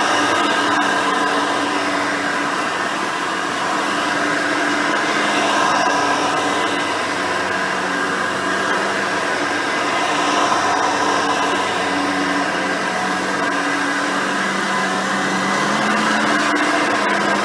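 Hoover Elite 350 upright vacuum cleaner running steadily while vacuuming, its rebuilt 5-amp motor and 7-blade fan giving a constant hum and whine whose pitch shifts slightly now and then.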